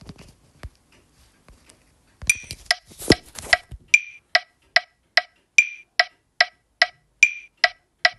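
Click track ticking steadily at about 146 beats per minute, with an accented click on every fourth beat marking the bar. Before the steady clicks there are faint scattered clicks, then a brief run of louder, irregular clicks.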